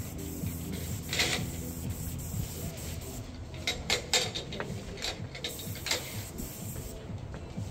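Paint sprayer running steadily, its pump and motor giving a constant low hum, with a few short hisses of spray about a second in and around the middle.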